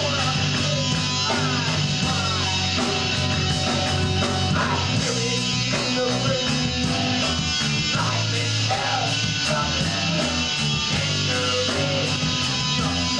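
Live rock band playing loud: electric guitars and drums, with a singer's voice over them.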